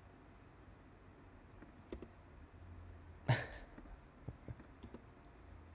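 Faint, scattered clicks at a computer: a sharp one about two seconds in, a louder one a little after three seconds, then a few light ticks, over a low steady hum.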